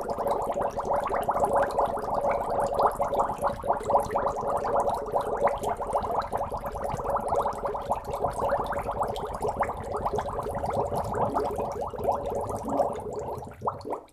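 Several glass bottles being filled with water in a sink: a dense, continuous stream of bubbling and glugging as air escapes from the bottles, stopping about a second before the end.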